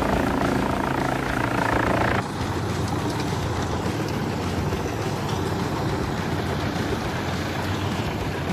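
Wood chipper machinery running steadily with an engine-like drone. About two seconds in the sound changes abruptly to a rougher, noisier machine running with a steady low hum.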